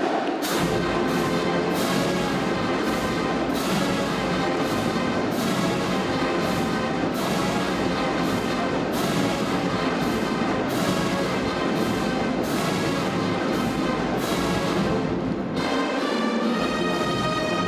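Brass-heavy instrumental music with a heavy drum hit about once a second. Near the end the hits stop and the brass holds long notes.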